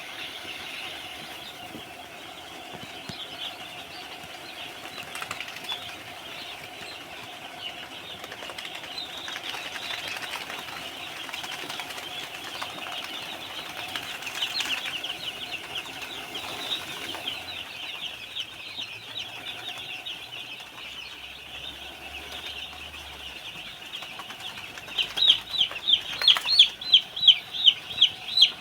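A flock of young chicks peeping: a dense chorus of short, high, falling peeps. About 25 seconds in, loud, evenly repeated peeping, two to three a second, rises above the rest.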